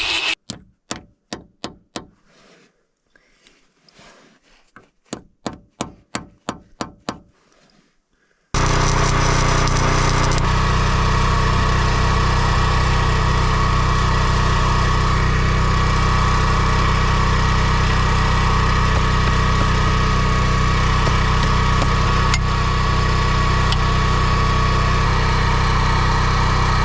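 About a dozen sharp metal taps, like hammer strikes, a few tenths of a second apart. About eight seconds in, a loud, steady engine-like machine sound starts abruptly and holds an even pitch.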